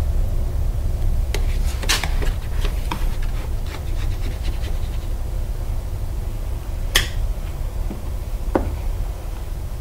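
Plastic squeegee rubbing and scraping over vinyl graphics on an ATV's plastic bodywork, in a run of short scratches and clicks, with a sharper click about seven seconds in and a brief squeak near the end. A steady low rumble runs underneath.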